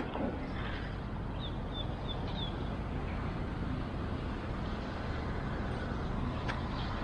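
Steady outdoor background noise of distant road traffic, with a few faint high chirps about a second and a half in.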